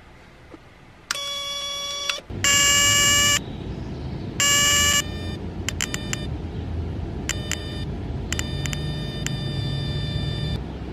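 Homemade spark igniter, an ignition coil switched by a self-interrupting relay and capacitor, buzzing in several on-off bursts: a high, steady buzz with sharp snapping clicks, loudest in two bursts about two and a half and four and a half seconds in, then fainter and stuttering. A low steady rumble lies underneath from about two seconds in.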